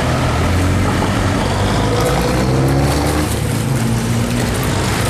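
Road traffic close by: a motor vehicle engine running with a steady low hum, its pitch rising a little around the middle, over water splashing in a fountain pool.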